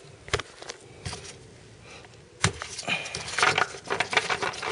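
Oil filler cap on a Nissan 3.5 L V6 being twisted off and lifted out: scattered clicks and knocks, a sharp click about two and a half seconds in, then a quick run of clicks and rattles near the end.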